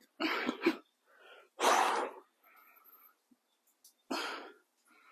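A person breathing hard with exertion: three sharp, forceful exhalations about two seconds apart, the middle one the loudest, with quieter breaths between them.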